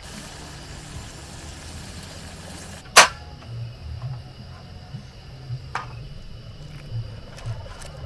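Pot of water boiling on a portable butane camping stove, a steady low rumble. One sharp clack about three seconds in and a softer click near six seconds.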